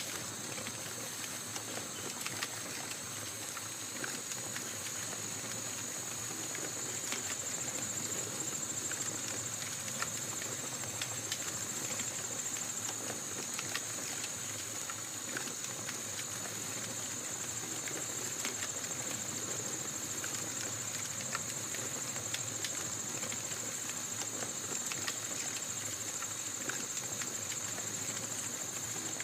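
Campfire crackling with scattered small pops, under a steady high-pitched chirring of night insects.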